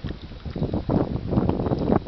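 Strong wind of about 30 knots buffeting the microphone in irregular gusts, growing louder about half a second in.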